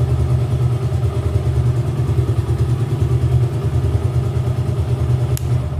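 Suzuki Gixxer motorcycle's single-cylinder engine and exhaust running steadily, settled at idle.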